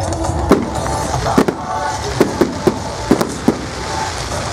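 Fireworks going off in a display: a string of sharp bangs, one about half a second in, another near a second and a half, then a quick cluster of five or six between about two and three and a half seconds, over steady background noise.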